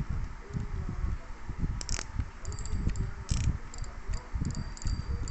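Daiwa 3500 spinning reel being handled up close while its drag is set: light clicks and ticks from the reel's mechanism over low, uneven thumps of fingers on the reel.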